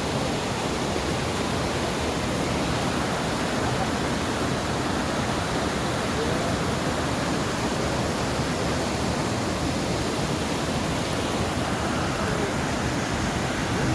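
Waterfall pouring into a rocky pool in a mountain stream, a steady, unbroken rush of water.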